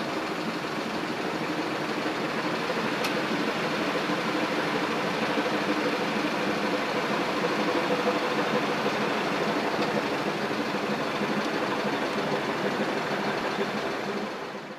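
Steady engine drone, a low hum over a wash of noise, fading out at the very end.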